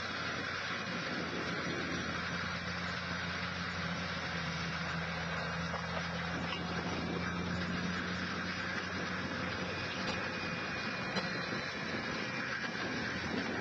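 LSG900 stump grinder running steadily as it travels along, its cutter grinding into the ground: an even engine hum under a constant hiss.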